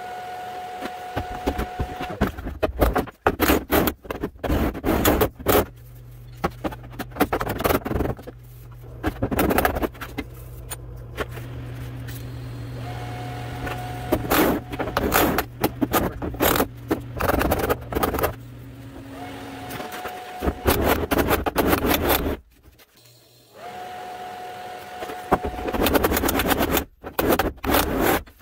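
Hammer welding a patch into a steel quarter panel. Spells of TIG welding with a steady hum alternate with quick runs of hammer blows on the sheet metal, which flatten each warm stretch of seam to keep the panel straight. The longest hum runs from about 5 s to 19 s.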